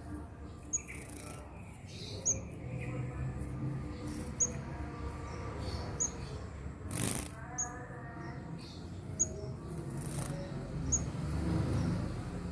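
Young sunbird giving short, high chirps about every second and a half, with two brief bursts of wing fluttering, one about halfway through and one near the end, over a low steady hum.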